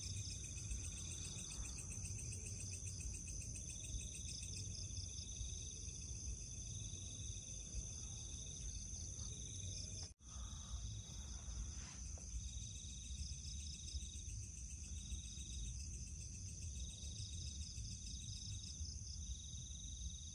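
Night insect chorus: a steady high-pitched ringing, with a second insect trilling in stretches of a second or so separated by short gaps, over a low rumble. The sound drops out for a split second about ten seconds in.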